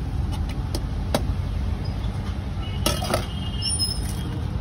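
Steady low rumble of road traffic, with a few sharp clicks and clinks about a second in and again around three seconds in.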